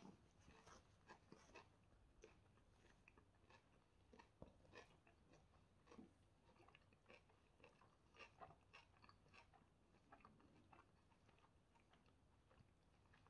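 Faint close-up eating sounds: soft flatbread being torn by hand and chewed. It comes through as a scatter of small crackles and clicks, several a second.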